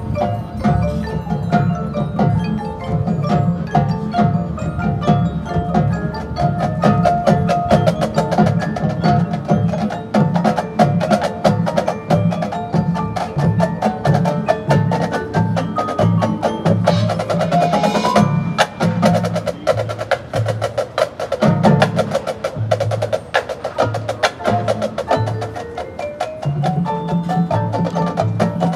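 Marching band playing, with percussion to the fore: mallet keyboards and drums over a repeated low bass line, and a short rising swell a little past the middle.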